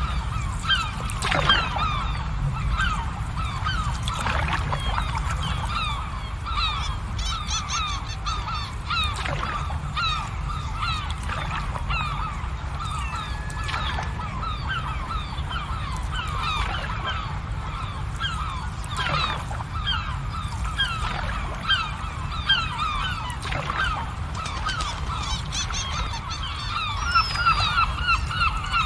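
A flock of geese honking continuously, many short overlapping calls, over a steady low rumble.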